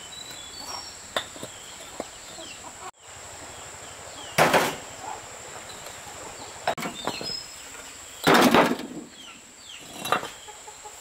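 Chickens clucking and small birds chirping, then, after a break, a few loud strikes on wood, the heaviest a quick cluster about eight seconds in, over a steady high whine.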